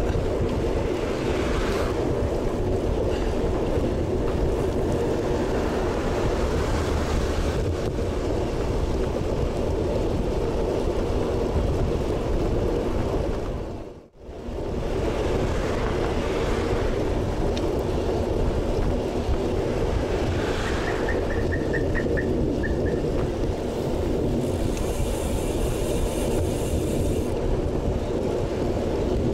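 Steady wind rush on an action camera's microphone while riding a road bike at about 33 km/h. It drops out briefly about halfway through.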